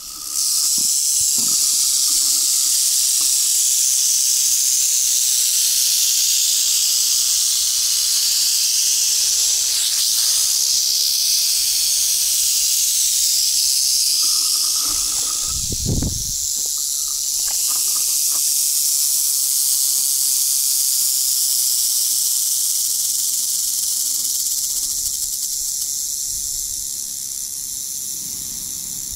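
Prairie rattlesnakes rattling their tails: a loud, continuous high buzz, the warning rattle of snakes disturbed at their den, which starts suddenly just after the start and eases slightly near the end.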